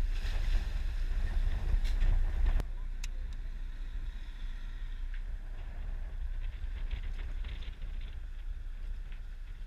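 Wind buffeting the camera microphone over a low rumble from the boat at sea. It is loud for about two and a half seconds, then drops suddenly to a quieter, steady rumble.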